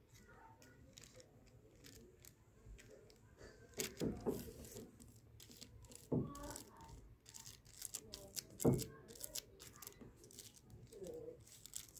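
Faint crinkling and scattered light clicks as a paint-covered leaf is handled and pressed onto paper over a crinkly plastic sheet, with a few soft thumps.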